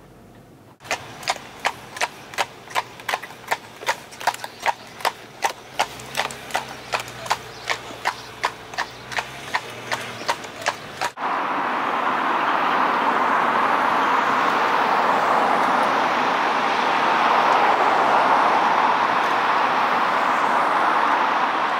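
Shod hooves of an Irish cob walking on a tarmac road: an even clip-clop of about three hoof strikes a second. It cuts off sharply about eleven seconds in and gives way to a steady rushing noise of road traffic.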